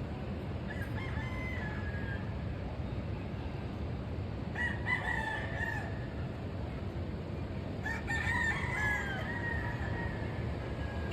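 Roosters crowing, three crows in turn: a fainter one about a second in, a louder one near the middle, and the longest about eight seconds in. A steady low background rumble runs beneath them.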